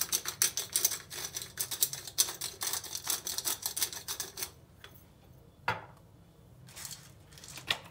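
Hand-held black pepper grinder being twisted over the fish, a dense run of quick grinding clicks for about four and a half seconds. It stops, followed later by a single knock.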